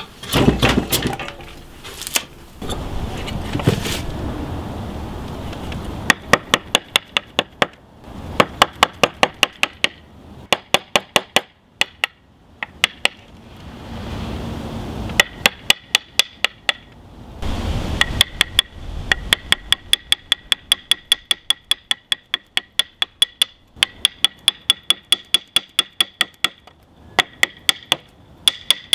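Wooden mallet tapping a steel carving gouge into oak, quick sharp taps about four or five a second with a short metallic ring, in runs broken by brief pauses. For the first few seconds, a chisel scrapes and pares shavings off the oak.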